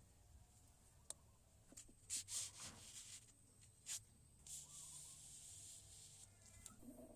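Faint handling noises: light clicks, then several short rubbing scrapes about two to four seconds in, followed by a steady hiss for a couple of seconds.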